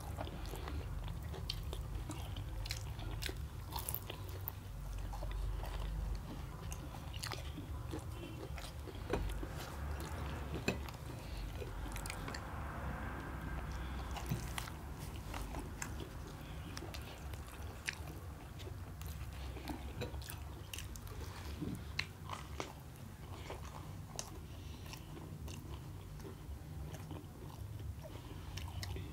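Two people biting and chewing fried samosas close to the microphone: crisp pastry crunching and wet chewing in irregular snaps, over a steady low hum.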